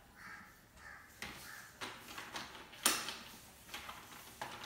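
Carrom coins clicking as they are set down one by one onto stacks on the carrom board, a few light clicks with one sharper click about three seconds in.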